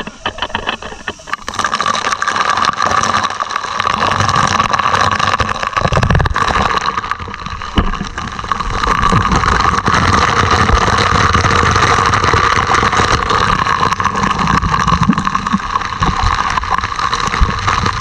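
Heavy spray of water from a hose pouring down onto a steel ship's deck and splashing right over the camera: a loud, steady rush that swells about a second and a half in.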